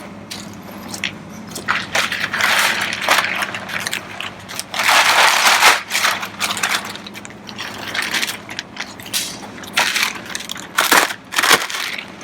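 Packaging being torn open and handled while a new car part is unwrapped: irregular crinkling, crackling and rustling, with a few sharp clicks. The loudest rustling comes about five seconds in.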